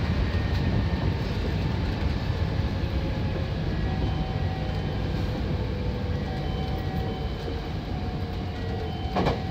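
Hankyu 7000 series electric train running on the rails, heard from inside the leading car: a steady rumble of wheels and running gear that slowly grows quieter as the train slows, with faint steady tones over it. One short clunk comes near the end.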